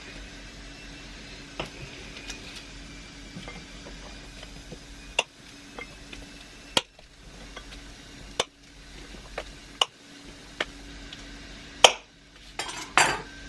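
Kitchen utensils and dishes clinking and knocking while baking ingredients are handled in a bowl: separate sharp taps every second or two, the loudest near the end, over a faint steady hum.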